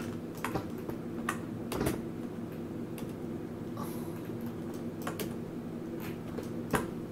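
Scattered clicks from a computer keyboard and mouse, about eight in a few seconds, over a steady low hum.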